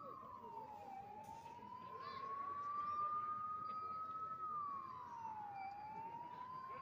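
Emergency vehicle siren wailing: one tone climbs slowly for about three seconds, then drops back in about a second, and repeats.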